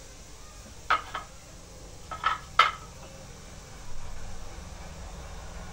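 A few short, light metallic clinks, four in the first three seconds, with two close together about a second in and two more just after two seconds. They come from small metal puja utensils being handled at a floor shrine.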